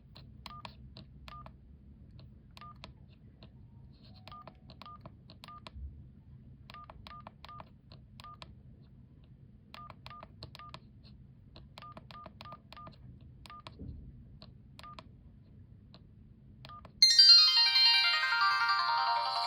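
Sony Ericsson J230i mobile phone giving short keypad beeps in irregular clusters as its keys are pressed. Near the end a polyphonic ringtone starts, much louder, opening with a run of notes that fall in pitch.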